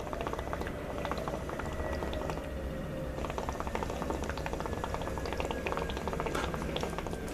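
Water bubbling steadily in a bubbler water pipe as smoke is drawn through it.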